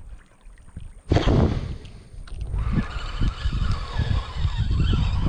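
Microphone handled and buffeted in the dark: a loud rush about a second in, then repeated rumbling thumps with a steady high whine over them from about three seconds in, cut off suddenly.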